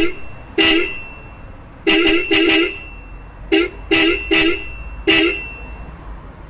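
Newly fitted aftermarket car horn sold as a Hella horn, sounded in eight short blasts, some in quick pairs, with a steady tone. The owner finds its tone not quite that of an original Hella horn.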